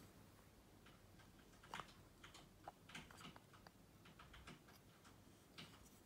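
Faint, scattered light clicks and taps of handling as a wooden lid is lifted off a white ceramic candle jar and moved aside.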